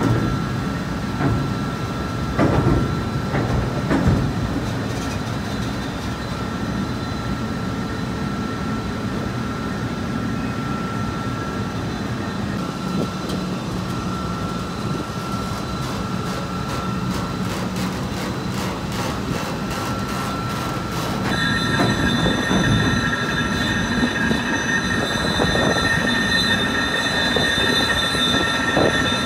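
Machinery of a Marion 8200 electric, cable-operated dragline running: a steady mechanical din with a thin whine, a few knocks in the first few seconds, and a louder, higher-pitched multi-tone whine joining about two-thirds of the way through.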